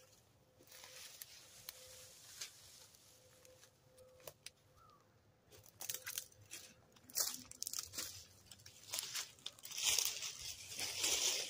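Dry leaves and twigs rustling and crunching in irregular crackles, getting busier and louder over the last few seconds.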